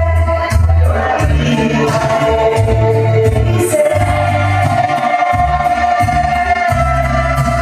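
Latin dance music with singing, played over a sonidero sound system, with a strong bass line that moves from note to note under the vocals.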